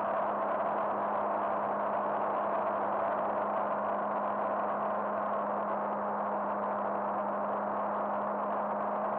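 Cirrus SR20's piston engine and propeller running steadily in flight, heard from inside the cabin as an even drone with a constant low hum.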